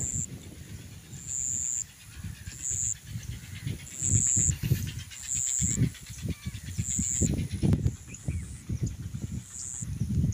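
A high-pitched animal call, each about half a second long, repeating roughly once a second, over irregular low rumbling from wind buffeting the microphone.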